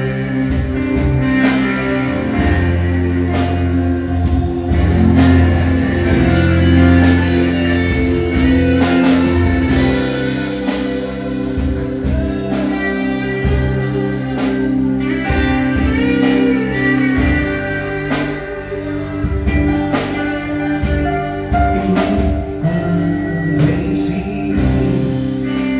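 Live worship band playing an instrumental passage: guitar chords and sustained notes over a steady drum-kit beat.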